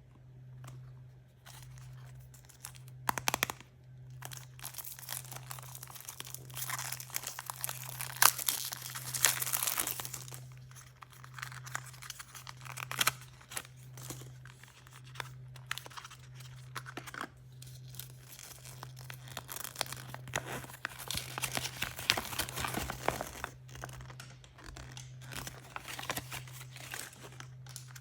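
Toy blind-bag packaging being crinkled and torn open by hand, in irregular crackling bursts with sharp snaps, over a steady low hum.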